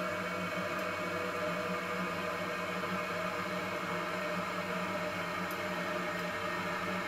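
Toilet water running with a steady hiss over a low hum, holding level without a break.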